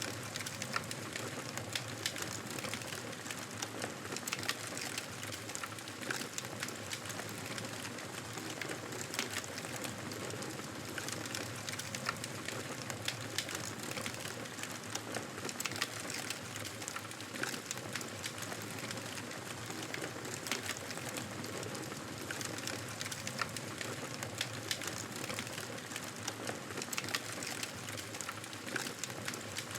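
Wood campfire crackling and snapping: many small, irregular pops over a steady hiss of the burning wood.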